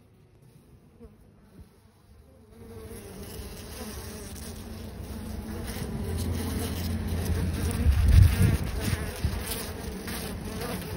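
Buzzing of a honeybee colony on an open hive comb, setting in about two and a half seconds in and growing louder, with a brief low rumble about eight seconds in.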